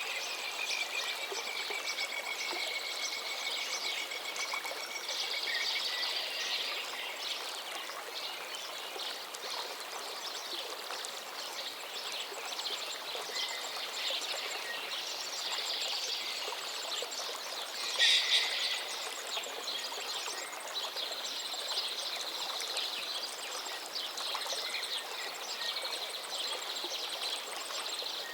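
Several songbirds singing and calling over the steady rush of a flowing river. A long whistled note carries through the first few seconds, and a louder burst of calls comes about two-thirds of the way through.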